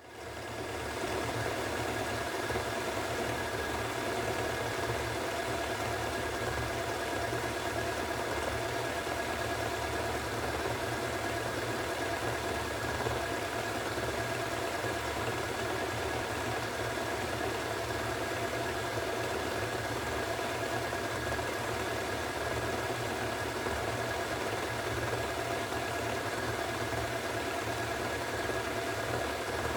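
Hoover Extra washing machine spinning at 1400 rpm, a steady rumble with an even whine over it. Its drum bearings are nearly bad.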